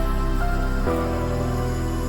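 Background music: soft sustained synth chords, changing about a second in.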